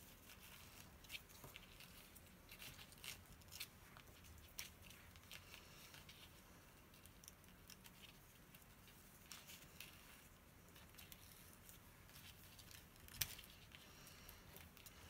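Faint scratchy rustling and small ticks of fingers handling ribbon and paper while tying a small bow onto a card, with one sharper tick about thirteen seconds in.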